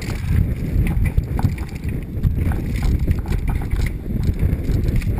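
Wind buffeting a helmet-mounted camera's microphone over the rumble and rattle of a mountain bike descending a rough dirt trail at speed, with frequent sharp clicks and knocks from the bike's chain and suspension over bumps.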